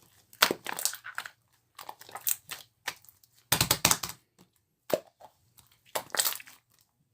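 Marbling slime squeezed and pressed by hand in irregular bursts, with crackling, clicky pops.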